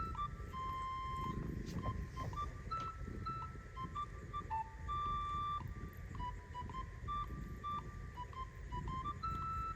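A simple electronic melody of pure beeping tones, stepping between a handful of notes and sometimes holding one for about half a second, over a low steady rumble.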